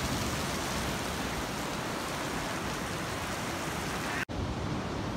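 Steady hiss of waves breaking and washing up a sandy beach. A little over four seconds in, the sound cuts out for an instant and comes back duller.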